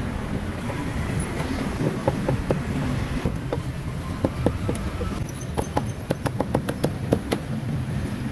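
A heavy cleaver chopping meat on a thick wooden chopping block: a run of sharp strikes that grow quicker and denser about halfway through. Under them runs a steady low rumble of street traffic.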